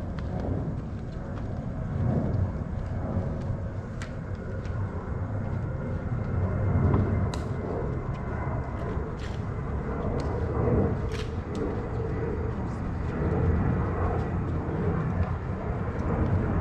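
Outdoor ambience: a steady low rumble, with faint murmuring and a few scattered sharp clicks.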